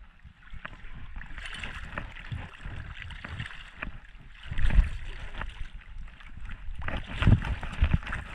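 Shallow water sloshing and splashing as a person moves through it at the shoreline, with knocks and bumps close to the microphone. The loudest thumps come about four and a half and seven seconds in.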